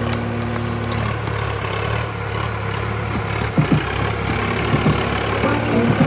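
Sonalika DI 745 III tractor's three-cylinder diesel engine running steadily, pulling a rotavator through flooded paddy mud, with a couple of short knocks about halfway through.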